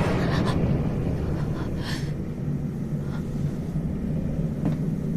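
Steady low rumbling drone from a horror film soundtrack, with a few faint clicks and a short hiss about two seconds in.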